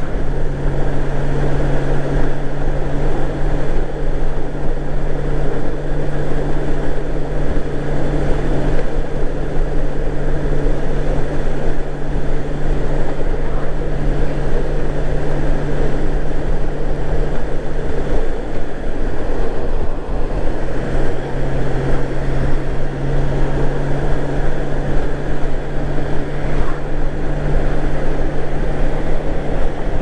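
Honda GL1800 Gold Wing's flat-six engine running at a steady cruise under a dense rush of riding noise. The engine hum eases briefly about eighteen seconds in, then steadies again.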